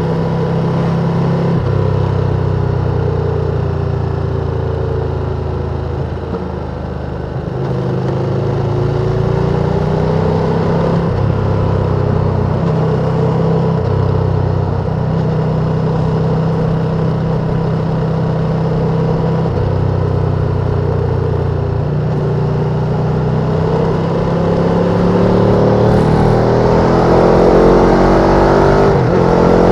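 Ducati sportbike engine running under way at steady revs. It eases off briefly about six seconds in, then rises in pitch as the bike accelerates near the end.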